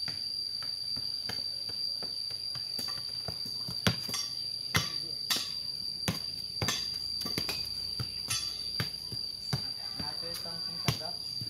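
A football being kicked and bouncing on a concrete lane, making about a dozen irregular sharp thuds, over a steady high-pitched insect drone.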